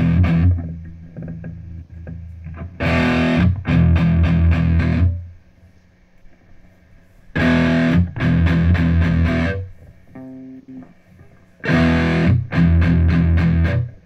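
Electric guitar played through a Boss Katana Artist combo amp. A short riff of low, hard-picked notes about two seconds long is repeated three times with pauses between, and a few soft notes fall in the pauses.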